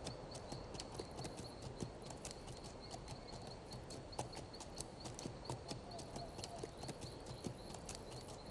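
Faint clip-clop of a horse's hooves at a walk, irregular clicking steps.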